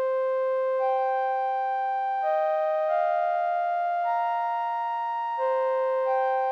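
Alchemy software synth playing a basic synth string sound built on a square wave: held notes entering about every second and overlapping one another. The patch is set with a slower attack and a long release, so each note tails off gradually.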